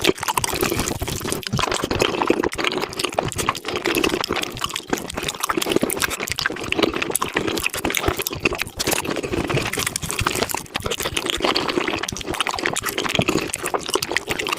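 Close-miked eating sounds of spicy beef feet played at five times speed: a dense, unbroken run of wet chewing and mouth-smacking clicks.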